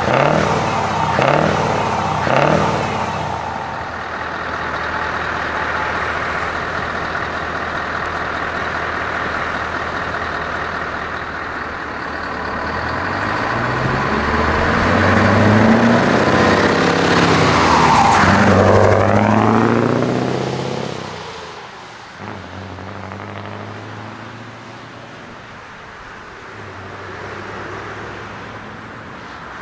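Scania 164L's V8 diesel blipped three times about a second apart at standstill, then running steadily. Around the middle it pulls away and drives past, its engine note rising and then falling away. After about 21 s it gives way to quieter, steadier traffic noise.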